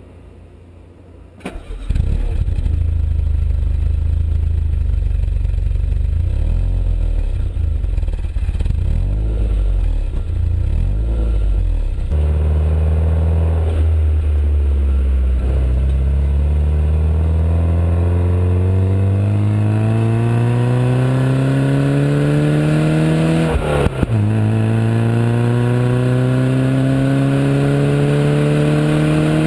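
Peugeot 205 GTI 1.9's four-cylinder engine and stock exhaust, coming in loud about two seconds in and running at low, steady revs, then pulling hard with the pitch climbing in long rises, broken by a gear change near the end.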